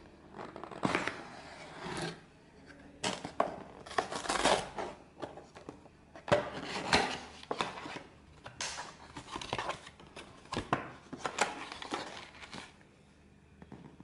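Cardboard takeaway pizza and garlic-bread boxes being handled and opened by hand: repeated bursts of cardboard flaps scraping, rustling and tapping, one every second or so, stopping shortly before the end.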